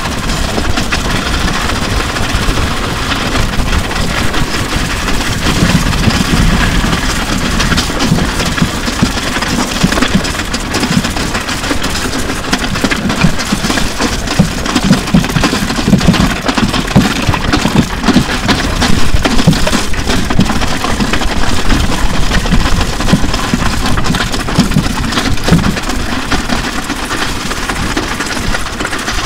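A drum kit and an electric guitar dragged along wet asphalt, picked up through the guitar's line output and an overhead mic on the drums: a loud, continuous grinding scrape with irregular knocks and rattles as the drum shells and guitar body bounce on the road.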